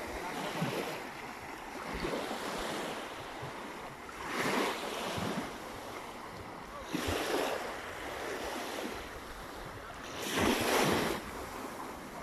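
Sea waves breaking on the shore, swelling in surges a few seconds apart, with wind on the microphone.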